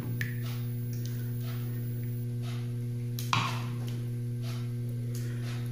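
Soft, faint strokes of a silicone spatula spreading tomato sauce in a ceramic baking dish, one a little louder a bit past three seconds in, over a steady electrical hum.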